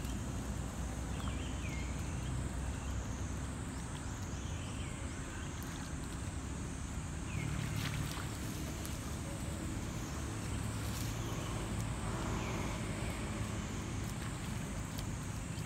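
Outdoor ambience with a steady low rumble throughout, faint short chirps now and then, and a few small knocks or splashes as young macaques wrestle in shallow muddy water.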